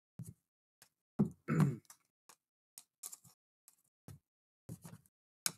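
Panini Mosaic basketball cards being handled and flipped one after another: a run of light, irregular clicks and snaps as the glossy cards slide and tap against each other.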